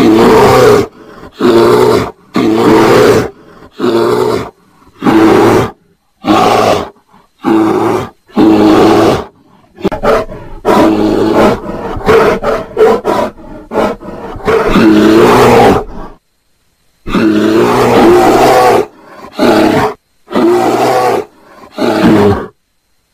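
Bears roaring during mating: a string of about fifteen loud, rough calls, most shorter than a second, with short gaps between them. A few calls near the middle and later on last a second or two.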